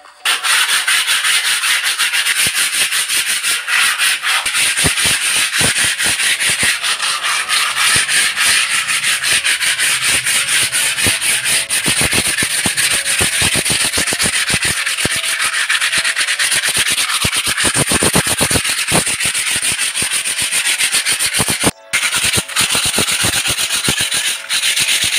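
Sandpaper (80 grit) rubbed by hand over dried wall putty: rapid, continuous back-and-forth scratchy strokes, smoothing the cured texture coat, with a brief pause near the end.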